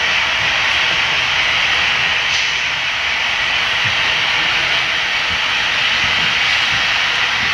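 Steady hiss and rumble of a long HO-scale model coal train running on the track.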